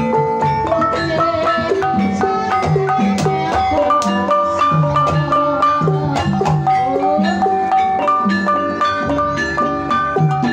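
Javanese Banyumasan gamelan ensemble playing a tayub piece. Bronze bonang kettle gongs are struck in quick running patterns, with drums underneath.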